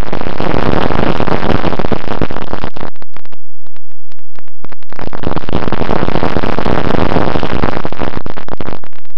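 Wind rushing over the onboard camera's microphone on a HobbyKing Bixler model plane in flight: a loud, distorted noise in two long stretches, with crackling dropouts between them about three to five seconds in.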